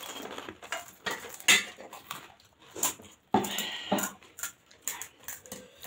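Stainless steel plates and bowls clinking and knocking on a table, with eating sounds of pani puri: a run of short clicks, louder for a moment a little past halfway.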